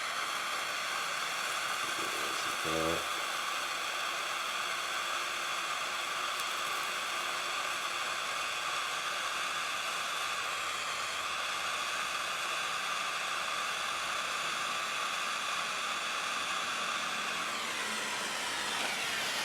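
Steady rushing hiss of a soldering torch flame heating the radiator to solder a leak.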